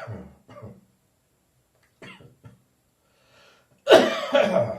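A person's slightly phlegmy morning cough: the tail of one cough as it opens, then another cough of two quick bursts near the end.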